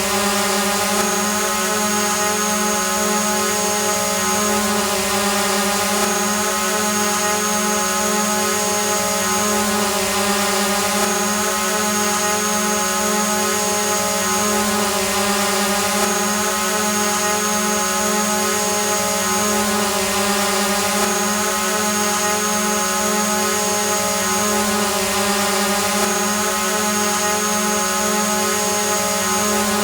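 Drone hovering: the steady whine of its motors and propellers, a strong hum with many overtones. A thin high tone above it drops out briefly about every five seconds.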